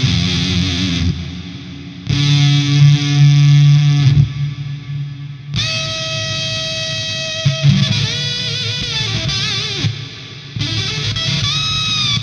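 Electric guitar played through a Gamechanger Audio Plasma Pedal, a fuzz that arcs the signal across a 3500-volt tube, giving a harsh, buzzy distortion with long sustain, with a reverb pedal after it. A few held notes and chords ring out one after another, with string bends near the middle and again near the end.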